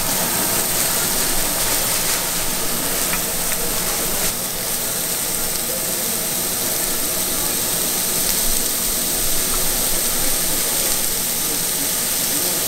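Food sizzling on a hot street-food griddle: a steady, even hiss.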